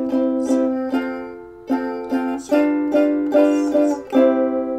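Ukulele strummed in a steady rhythm of chords, about two strums a second, with chord changes partway through. The last chord, a little after four seconds in, is left to ring.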